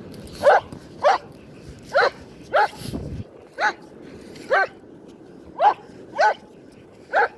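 A dog barking over and over, about nine short barks in a row, roughly one or two a second.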